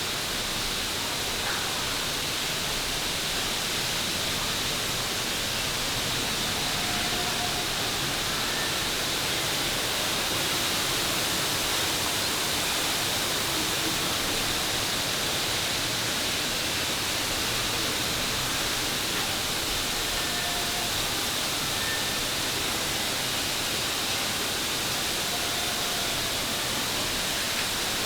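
Steady, unbroken rushing of a large waterfall, running high after recent typhoon rain.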